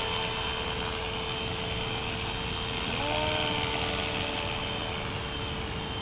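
Esky Belt-CP electric RC helicopter hovering: a steady motor whine and the hum of its rotor blades over a noisy haze.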